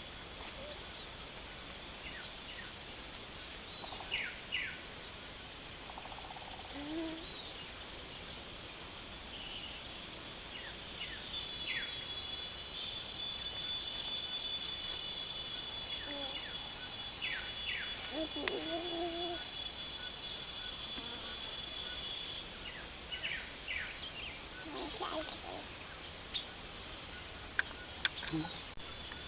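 A steady insect chorus with scattered short bird chirps throughout. A long, even trill runs from about a third of the way in to about three quarters.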